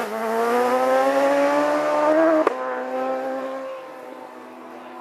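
Race motorcycle engine accelerating hard away out of a hairpin, its pitch rising steadily. About two and a half seconds in there is a sharp crack and the pitch steps down as it changes up a gear, then the engine fades into the distance.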